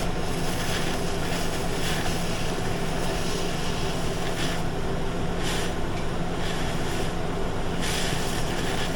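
Oxy-fuel cutting torch hissing steadily as it skims excess metal off a steel wheel rim, with the cutting oxygen turned only part way up. The hiss swells briefly a few times.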